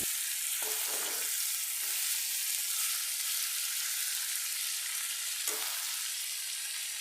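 Mutton curry frying in a pan with a steady sizzling hiss, stirred briefly about a second in and again about five and a half seconds in.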